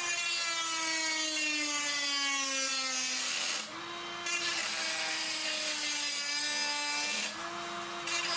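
Dremel rotary tool cutting into a computer case panel: a motor whine over a gritty cutting hiss. The pitch sags as the tool bogs down under load, then jumps back up each time the cut eases off, about three and a half seconds in and again about seven seconds in.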